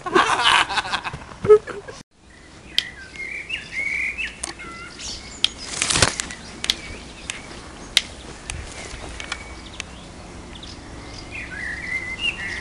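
Rustling and flapping-like noise for the first two seconds, then birds chirping faintly behind scattered sharp knocks, the loudest one about six seconds in.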